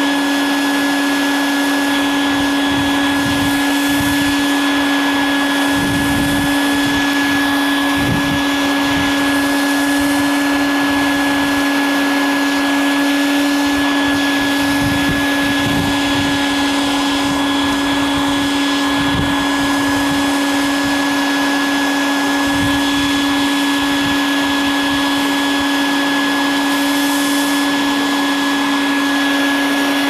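Bee vacuum running steadily, its motor giving a constant whine as it sucks swarming honeybees off an apple-tree branch through a corrugated hose, with occasional low bumps.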